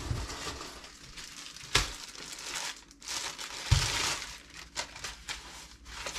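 Clear plastic packaging bag crinkling and rustling as a new padded shooting-rest bag is unwrapped, with two dull knocks, about two seconds and about four seconds in.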